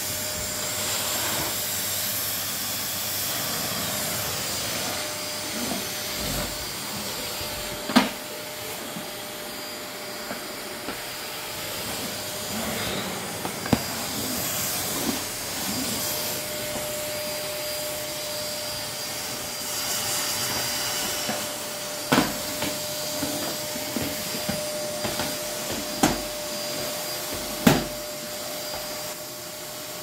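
Bagless cylinder vacuum cleaner running steadily with a thin whine as its floor head is pushed over a laminate floor, with a few sharp knocks along the way.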